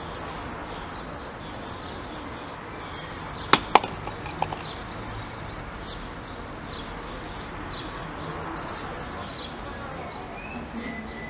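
Steady outdoor background with faint bird chirps. About three and a half seconds in come two sharp knocks close together and a lighter one a moment later: a small plastic flower pot knocking on the tiled balcony floor as the cat noses into it.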